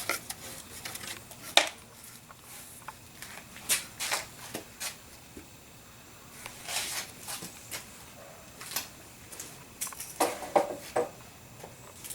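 Scattered clinks and short clatters of metal tools and parts being handled, with quiet gaps between them and a small cluster of clinks near the end.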